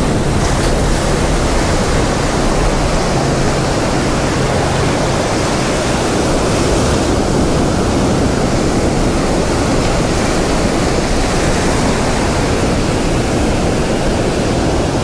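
Ocean surf breaking and washing in over the shallows in foam, a steady loud rush of water.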